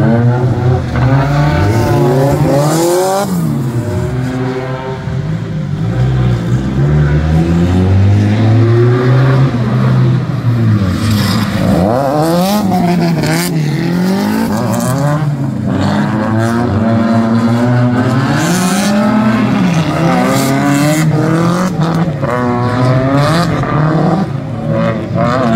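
Drift cars' engines revving hard and falling back again and again as they slide through the corners, the pitch rising and dropping every second or two, with two engines overlapping while the cars run in tandem.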